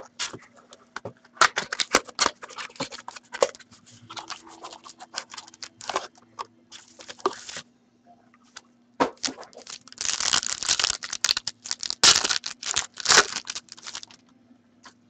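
Hockey card box being opened by hand: cardboard flaps and packs clicking and rustling, then a card pack's plastic wrapper torn open and crinkling, loudest from about ten to fourteen seconds in.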